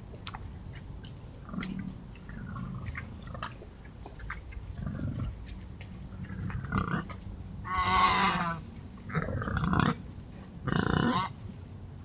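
Wild boar grunting low, with small ticks and rustles, then giving three loud squealing calls in the second half, the first the longest.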